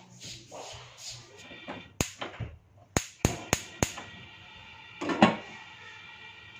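Metal kitchen vessels and utensils knocking and clinking: one sharp knock about two seconds in, a quick run of four knocks around the third second, and a louder clatter about five seconds in that leaves a ringing metallic tone.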